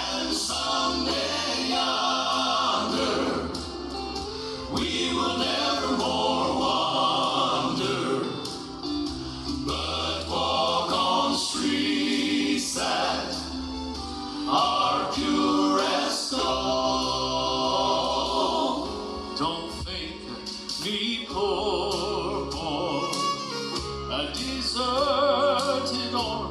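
Gospel song sung by voices with instrumental backing.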